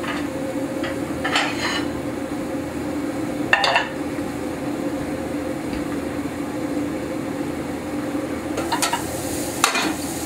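Steady hum of a kitchen vent hood fan over steak sizzling in a hot skillet, with several short metallic clanks of pans, lid and tongs, the loudest about three and a half seconds in.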